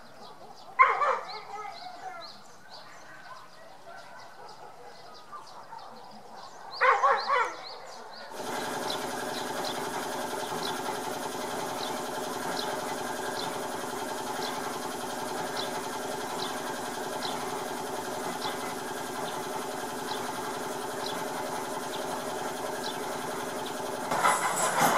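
Two short vocal calls over faint ambience, then from about eight seconds in a machine running steadily: a hum of several tones with a light tick about twice a second. A louder noise joins near the end.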